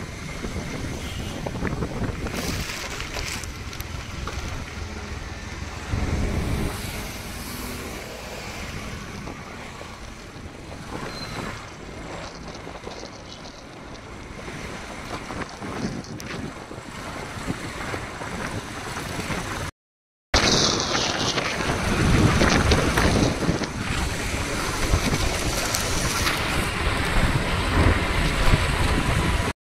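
Loud, steady rushing of wind buffeting the microphone, broken off briefly by an edit about two-thirds of the way through.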